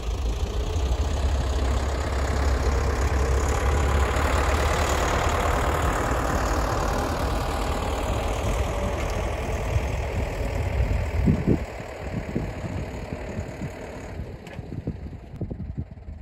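Deutz-Allis tractor's diesel engine running as it drives past towing a flatbed hay wagon. The engine grows louder as it comes by, then fades about 11 seconds in, leaving a few scattered knocks.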